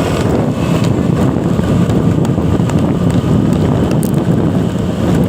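Steady wind buffeting the microphone over the running engine and road noise of a moving vehicle, with no horn sounding.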